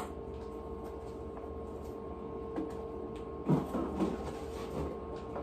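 Refrigerator door opened and things shifted about inside it, a few soft knocks and rustles about halfway through, over a steady hum.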